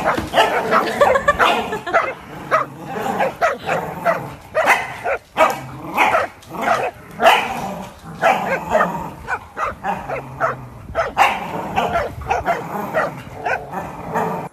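Two corgis barking and yipping in quick, repeated bursts while they play tug-of-war over a toy.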